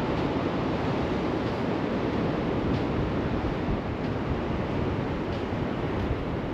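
Steady rushing of sea surf mixed with wind on the microphone.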